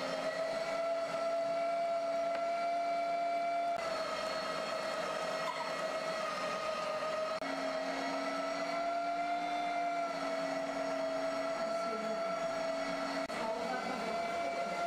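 Electric meat grinder's motor running steadily while mincing meat: a constant whine with a lower hum beneath it that drops away about four seconds in, returns about halfway through, and stops near the end.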